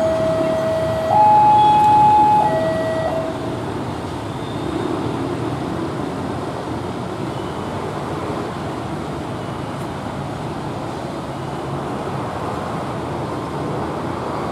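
Railway level-crossing warning alarm sounding a steady two-tone signal, low and high notes alternating about once a second, which stops about three seconds in. After it, a steady rumble of motorcycle and car engines as traffic crosses the tracks.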